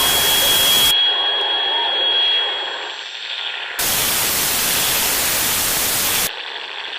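Two loud bursts of harsh static hiss that start and stop abruptly. The first lasts about a second and the second about two and a half seconds, starting a little under four seconds in. Between them is a softer hiss with a faint steady high whine that fades out.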